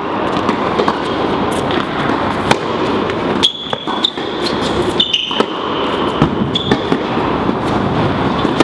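Indoor tennis rally: tennis balls being struck by racquets and bouncing on the hard court as sharp irregular knocks, with a few short high squeaks about three and five seconds in, over a steady rushing background noise.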